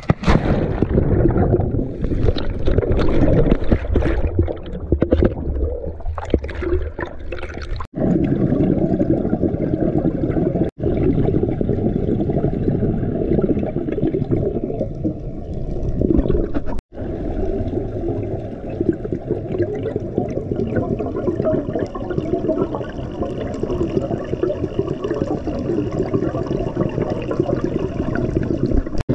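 Muffled underwater water noise picked up through a GoPro's waterproof housing: a steady low rumble and swish, with bubbling and splashing in the first several seconds. The sound drops out briefly three times where one clip cuts to the next.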